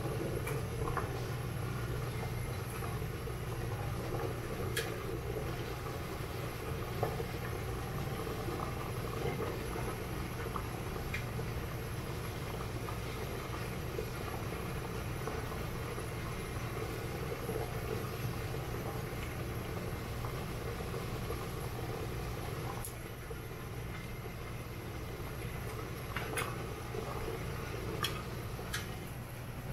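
Steady rumble of water boiling in a stainless steamer pot on a gas burner, with a few light clicks of chopsticks on the metal as beef slices are laid on the tray.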